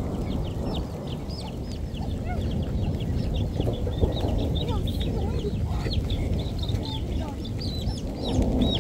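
Many small birds chirping: a dense stream of short, high chirps over a steady low rushing noise.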